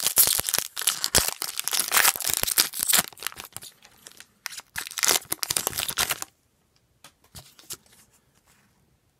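Foil wrapper of a hockey trading card pack being torn open and crinkled: dense crackling that stops about six seconds in, followed by a few faint clicks as the cards are handled.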